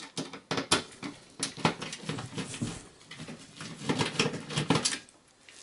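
Phillips screwdriver working a motherboard screw out of a computer's steel chassis: a run of small irregular clicks and scrapes of the driver and screw.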